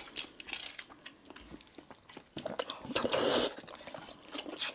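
Close-up wet chewing and mouth sounds of soft grape jelly being eaten, with scattered small clicks and one louder wet burst about three seconds in.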